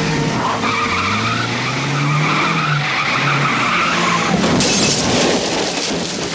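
Car engine revving and tyres squealing in a skid, ending in a crash with breaking glass about four and a half seconds in.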